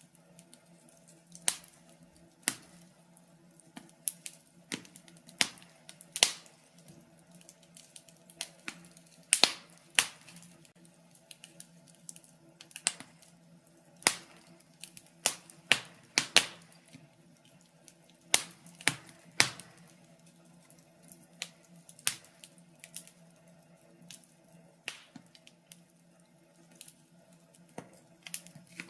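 Wood fire crackling in a fireplace: irregular sharp pops and snaps, about one or two a second, some much louder than others, over a faint steady low hum.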